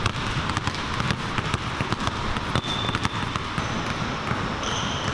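Basketballs being dribbled on a hardwood gym floor: a steady stream of quick, overlapping bounces echoing in the hall, with a couple of short high squeaks about two and a half seconds in and near the end.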